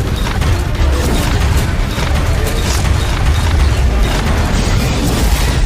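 Dramatic orchestral action music layered with heavy crashing, booming impact sound effects and a continuous low rumble.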